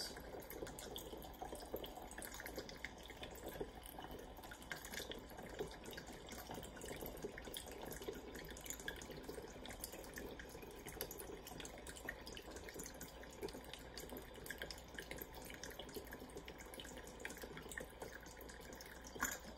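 Vodka poured from a plastic bottle through a small metal funnel into a glass swing-top bottle: a steady trickle of liquid filling the bottle.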